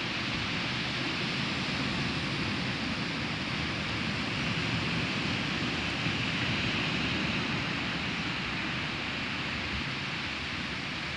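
Waves breaking and washing up a sandy beach: a steady rush of surf that swells slightly midway.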